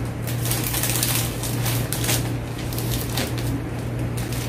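Glossy printed plastic wrapping sheet crinkling as it is folded and gathered up by hand, in irregular crackles over a steady low hum.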